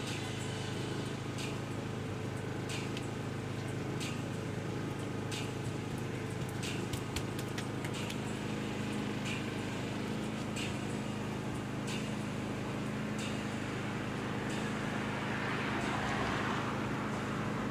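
Steady low hum of city street and traffic ambience with scattered faint clicks. Near the end a broad swell of noise rises and fades, like a passing car.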